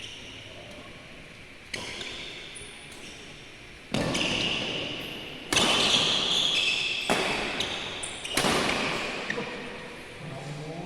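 Badminton rally in an echoing sports hall: about five sharp racket strikes on the shuttlecock, each ringing on in the hall's reverberation, with short high squeaks between them.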